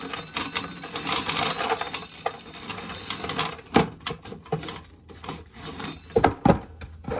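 Dried corn being shelled off the cob: a dense run of small clicks and rattles from kernels, thinning out in the second half, with a few louder knocks.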